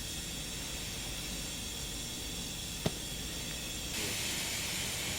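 Steady hiss that sets in abruptly, with a single sharp click near the middle and a louder, brighter hiss from about four seconds in.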